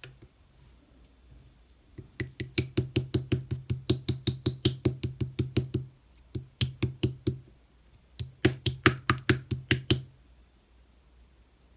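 Clear slime being poked rapidly with fingers, giving sharp, evenly spaced clicks about six a second in three runs, the longest about three and a half seconds.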